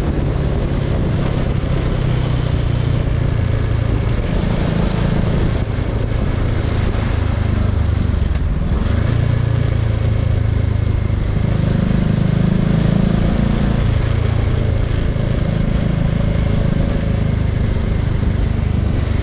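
Bajaj Dominar 400's single-cylinder engine running while riding, its note rising and falling with the throttle, over steady wind and road noise.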